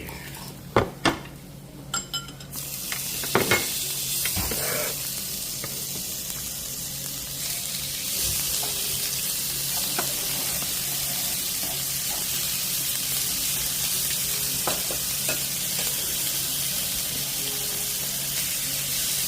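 Thick pork belly sizzling on a grill over oak charcoal, a steady crackling hiss that sets in a couple of seconds in and grows louder around a third of the way through. A few sharp knocks sound near the start.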